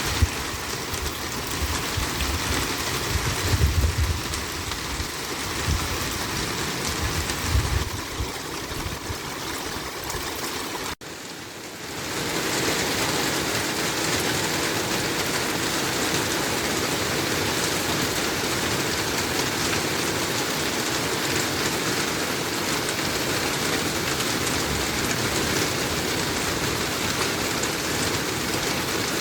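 Steady rain falling as a dense, even hiss. Low rumbles come and go in the first eight seconds. About eleven seconds in the sound dips briefly, and then the rain runs on steadier and brighter.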